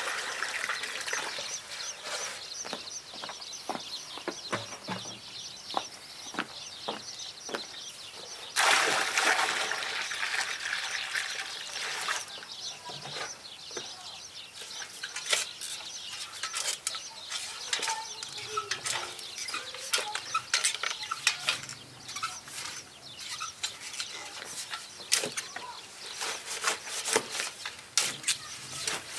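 Domestic chickens clucking, among many small clicks and knocks. About nine seconds in there is a loud burst of noise lasting about three seconds.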